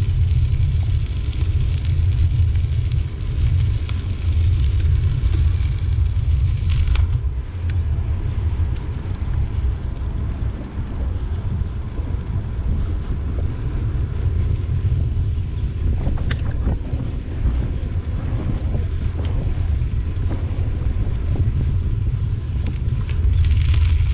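Wind buffeting the microphone of a bicycle-mounted camera over the steady rumble of bicycle tyres rolling along an asphalt towpath, with an occasional click from the bike. Near the end a rougher, brighter hiss comes in as the tyres reach loose gravel.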